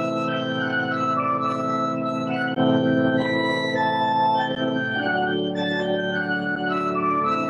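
Church organ playing sustained chords, changing chord about two and a half seconds in and again about five seconds in.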